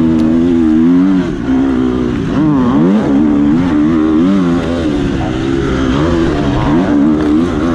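Husqvarna FC250's 250cc four-stroke single-cylinder engine under race throttle, its pitch rising and falling as the rider works the throttle and gears. There is a short throttle-off about a second in and a quick rev up and down near three seconds.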